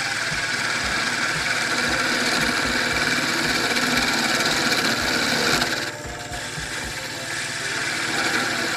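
Wood lathe running while a detail gouge cuts a spinning spindle blank, a steady hiss of the tool shaving the wood over the lathe's low hum. The cutting hiss eases off about six seconds in and builds again near the end.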